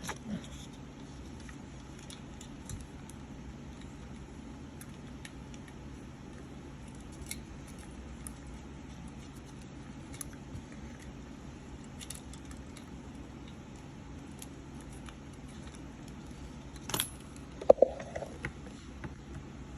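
Scattered light clicks and metallic taps of small tools and a circuit board being handled while the board is cleaned, over a steady low room hum; a few louder clicks near the end.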